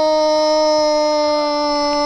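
A football commentator's long, drawn-out "gol" shout, held on one note that sinks slowly in pitch.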